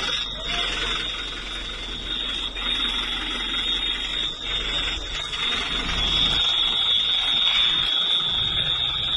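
A steady, high-pitched electronic alarm tone sounds without a break over a noisy background, growing louder in the second half.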